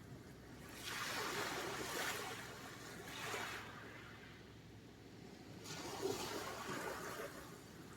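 Sea surf: waves breaking and washing up the shore in two surges, the first about a second in and the second about six seconds in, with a quieter wash between them.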